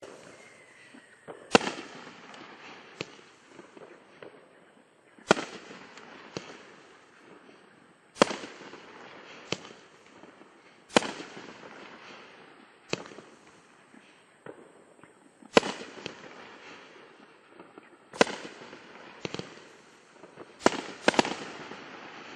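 A 9-shot, 500 g consumer fireworks cake (FF5050 Pro Series #5) firing heavy-loaded shells. Sharp launch and burst bangs come every few seconds, with two close together near the end and a noisy hiss between the bangs.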